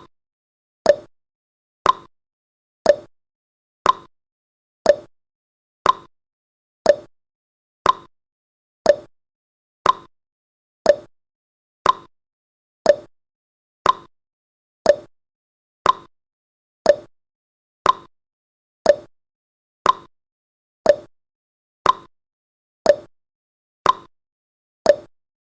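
Countdown timer's clock-tick sound effect: one short, sharp tick each second at an even pace, silent between ticks, marking off the seconds.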